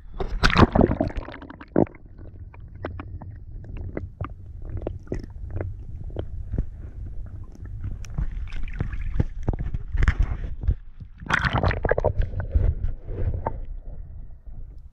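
Water heard through an action camera held just under the lake surface: a muffled low rumble with scattered clicks and knocks, and gurgling splashes near the start and again around ten to twelve seconds in.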